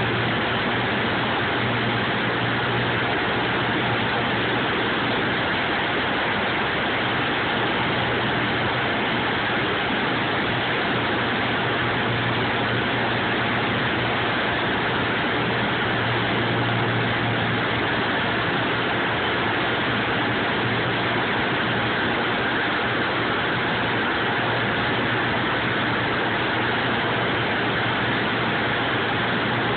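Cessna light aircraft's engine and propeller droning steadily, heard inside the cockpit as a low hum under a constant rush of cabin noise.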